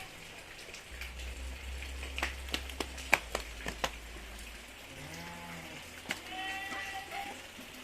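Cat meowing, with a long call near the end, after a run of sharp clicks and taps about two to four seconds in.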